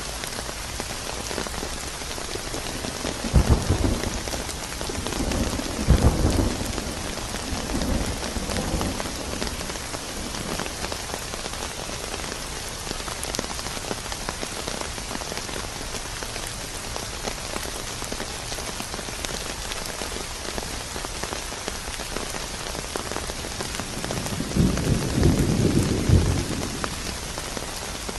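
Steady heavy rain with thunder rumbling: a rolling peal a few seconds in that swells twice and dies away, and a second rumble near the end.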